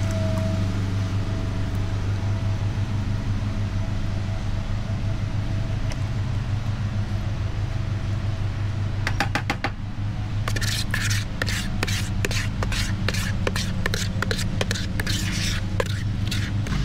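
Thick clay slip pouring from a plastic bucket into a cloth-lined bucket. From about halfway through, quick repeated scrapes and taps come in as a spatula scrapes the last slip from the inside of the bucket. A steady low hum like a running engine lies under it all.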